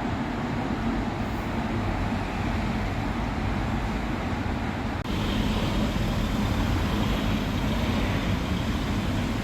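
Steady road traffic noise, a continuous low rumble that grows a little louder about five seconds in.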